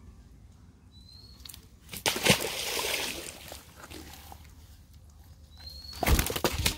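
A large carp thrashing in a cast net on the grass, slapping and rustling the wet mesh in two loud bursts, one about two seconds in and another near the end.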